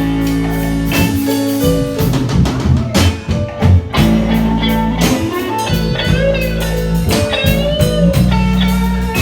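Live band playing an instrumental break in a reggae arrangement, with guitar, a steady bass line and drum kit.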